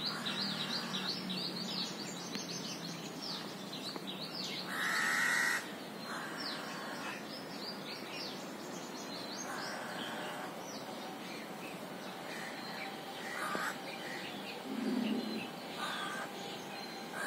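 Crows cawing with small birds chirping. A fast run of short high falling chirps fills the first few seconds, a loud harsh caw comes about five seconds in, and fainter caws follow every few seconds.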